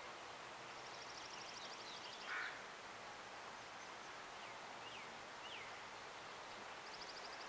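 Wild birds calling over a steady background hiss. A small songbird gives a fast, even, high trill lasting about a second and a half, starting just under a second in and again near the end. In between come a few thin downslurred chirps and one short harsh call about two seconds in, the loudest sound.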